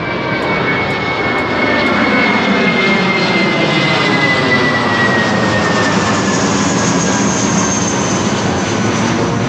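Jet airliner passing low and close: a loud engine roar with a high whine that glides slowly down in pitch.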